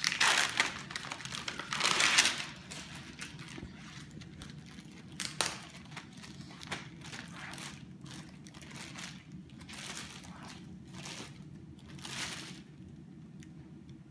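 Plastic sterile-drape packaging crinkling and rustling as gloved hands open it and spread it out, loudest in two bursts within the first couple of seconds, then in intermittent rustles.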